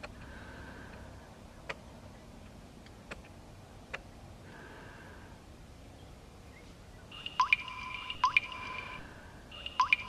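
Water drops dripping: a few single sharp drips in the first half, then from about seven seconds in, louder plinking drops into water, each with a short rising pitch and a brief ringing tone, in two clusters.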